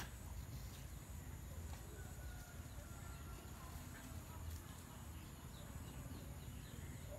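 Outdoor rural ambience: a steady low rumble on the microphone with faint scattered bird chirps.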